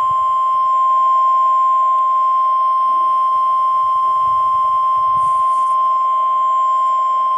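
NOAA Weather Radio 1050 Hz warning alarm tone, one steady high-pitched tone held without a break, sent as a test of the tone alert system. It comes through a radio receiver with a faint hiss under it.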